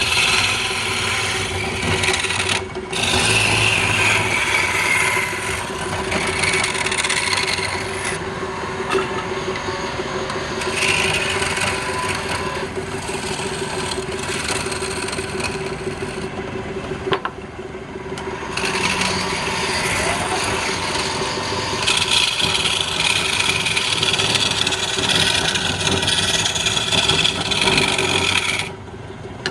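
Wood being cut or sanded on a running wood lathe: a steady motor hum under a scraping, rasping noise that swells and fades with the tool's strokes, breaking off briefly a few times and stopping just before the end.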